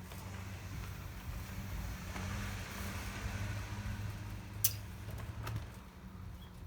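A car's boot lid being worked by hand, with one sharp latch-like click about two-thirds of the way in and a weaker one shortly after, over a steady low hum.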